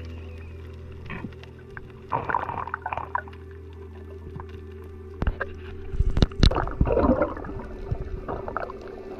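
Underwater sound picked up by a diving camera: irregular gurgling swishes twice, with a few sharp clicks between them, over a steady low hum.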